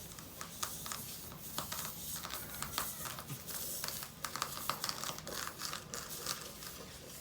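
Tire plug kit's rasp tool being worked in and out of a nail puncture in a tire's tread, an irregular series of short scratchy scraping strokes. This is the hole being reamed round before a plug goes in.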